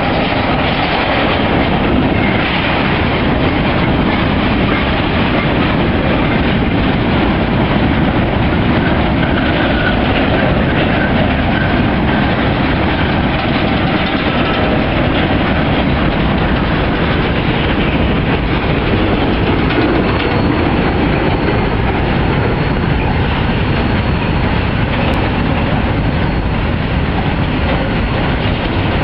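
Freight train of open-top hopper cars rolling past at speed: a steady, loud rumble and rattle of steel wheels on the rails, with clickety-clack over the rail joints.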